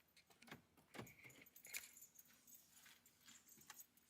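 Faint, irregular light clicks and rattles.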